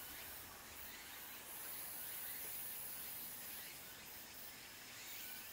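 Faint outdoor ambience: a steady low hush with a thin, high, continuous insect drone over it.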